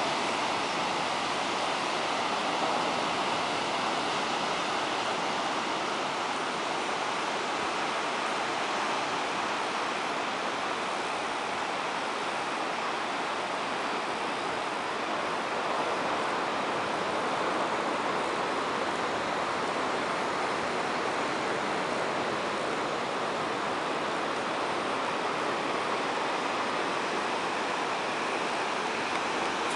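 Surf on a sandy beach: a steady, even rushing of breaking waves.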